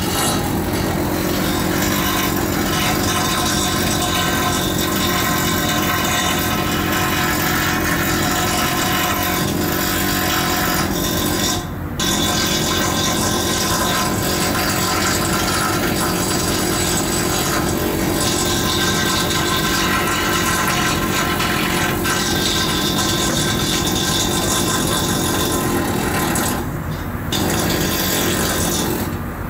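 Steady, loud machinery noise: a dense rasping drone with several steady tones in it, dropping away briefly twice, about 12 seconds in and again near the end.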